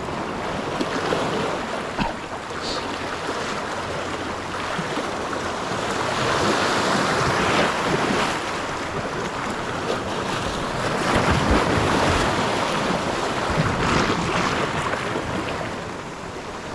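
Surf washing on a rocky shore in stormy weather, swelling and easing, with wind buffeting the microphone.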